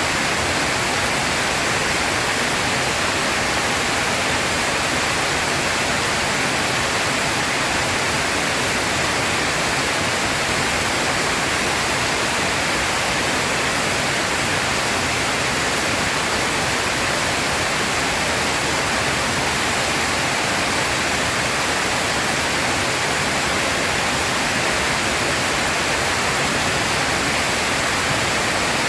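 Heavy rain pouring down steadily, an even hiss with no thunder.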